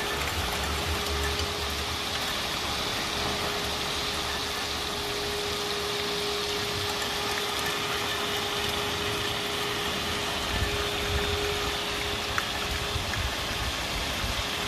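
Heavy rain pouring down, with a steady single-pitch tone sounding over it that cuts off about eleven seconds in. The uploader takes the continuous tone for the fire brigade's alarm system, set off when lightning probably struck its control centre.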